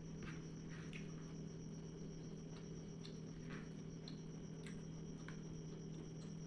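Soft eating sounds: chewing and small wet mouth clicks, a few each second, over a steady low hum and a constant high-pitched tone.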